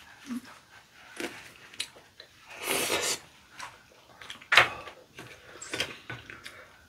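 Table-eating sounds: chopsticks clicking against ceramic bowls, with a short breathy rush of air about three seconds in and a sharp clack about a second and a half later.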